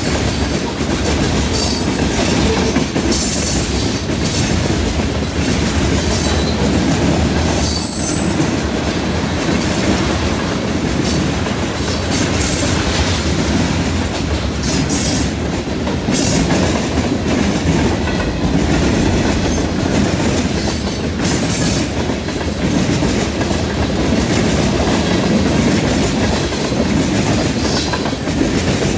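Freight train's tank cars and covered hoppers rolling past close by: a steady rumble of steel wheels on rail with a run of clacks as the wheels cross rail joints, and a brief high squeal about eight seconds in.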